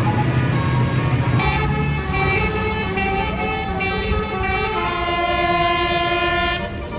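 Tour bus's basuri (telolet) musical horn playing a short tune: starting about a second and a half in, it sounds a run of changing notes and then holds one note for about two seconds before cutting off, over the bus engine running.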